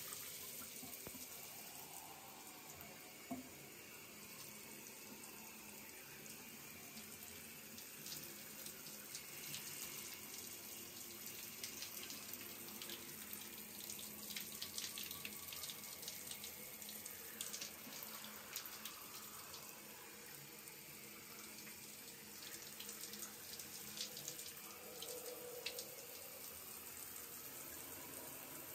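Shower water running steadily and spattering onto clothing, with irregular crackly splashes. One sharp click about three seconds in.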